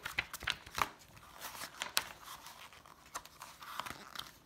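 Pages of a paperback graphic novel being turned by hand: a run of quick paper flicks and rustles, thickest in the first couple of seconds, then scattered.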